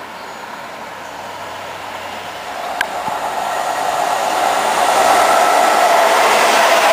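Freightliner Class 86 electric locomotive 86501 hauling a container train passes at speed. The rushing noise of the locomotive and wheels on rail grows louder over about five seconds and then holds steady, with a single sharp click about three seconds in.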